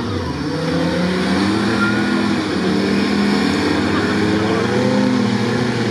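Off-road 4x4 engines revving as the vehicles push through a deep mud track, more than one engine at once, their pitch rising and falling.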